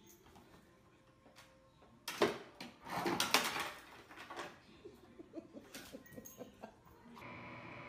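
A dog paws open a stainless-steel side-by-side refrigerator door: a sudden clatter about two seconds in as the door comes open, the loudest stretch just after, then smaller knocks and rattles as the dog noses into the fridge.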